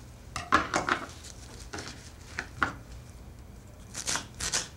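Knife chopping fresh cilantro in uneven knocks, with a quicker run of strokes near the end.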